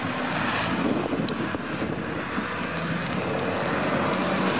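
Road traffic passing on wet pavement, a steady hiss of tyres and engine rumble, with wind buffeting the microphone.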